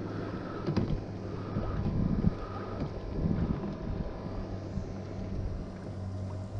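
A small boat's motor hums steadily and low. A few soft knocks and rustles come as a redfish is handled and laid on the deck.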